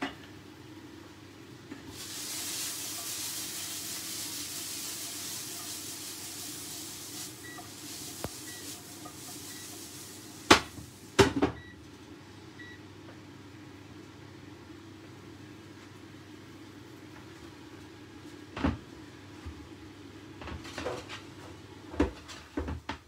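Vegetables sizzling in a frying pan, a hiss that starts about two seconds in and dies away after ten seconds or so. Near the middle come two sharp metal-and-glass clacks of the pan lid and utensil. Later come a few knocks as a ceramic plate is moved on the wooden counter.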